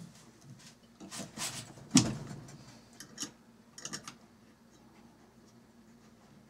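A few rubs and knocks of PVC pipe and a brass three-way valve being handled and pushed into place, the loudest a sharp knock about two seconds in, followed by a few small clicks.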